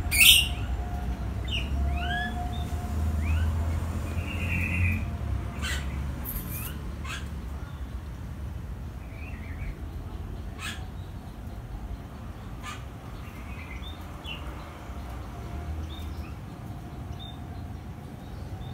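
A small songbird chirping in short rising notes, several in the first few seconds and sparser later, with a few sharp clicks over a steady low rumble.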